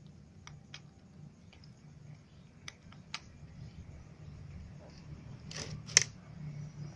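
A cat lapping water from a plastic tub: scattered faint, irregular ticks, then a short scuff and a sharp click near the end, which is the loudest sound.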